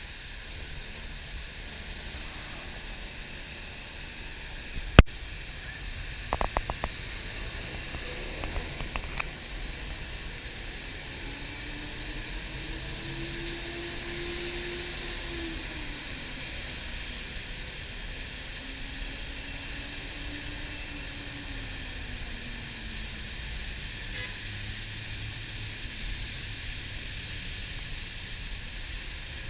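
City bus riding on wet roads in the rain: a steady rushing noise, with a low engine tone that rises and falls twice. A sharp click comes about five seconds in, followed by a quick rattle of ticks.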